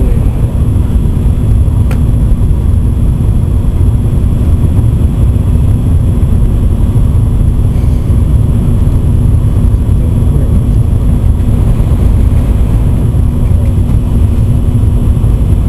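N700 series Shinkansen running at high speed, heard inside the passenger car: a steady, loud low rumble with a constant hum underneath.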